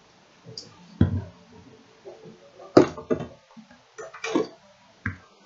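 About six sharp knocks and taps, the loudest about three seconds in: seasoning containers being tapped and set down on a kitchen counter.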